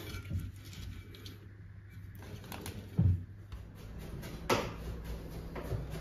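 Kitchen work sounds: a few knocks and clicks of things being handled at the counter, with a heavy thump about three seconds in and a sharp click about a second and a half later, over a low steady hum.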